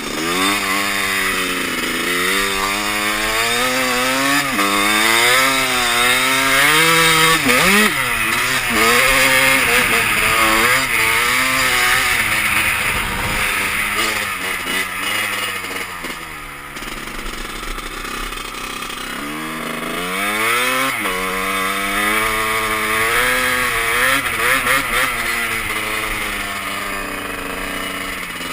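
Honda CR250 two-stroke dirt bike engine being ridden, revving up and down over and over, its pitch climbing and falling every second or two. It eases off to a low pitch for a few seconds past the middle, then picks up again.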